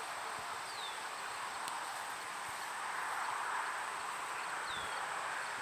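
Faint outdoor background noise, a steady hiss, with two short falling bird chirps: one near the start and one near the end.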